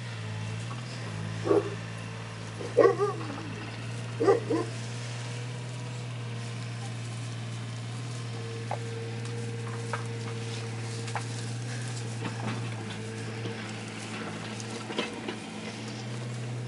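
Three short, high, wavering cries from 24-day-old Šarplaninac puppies in the first few seconds, then small taps and scratches as they move about, over a steady low hum.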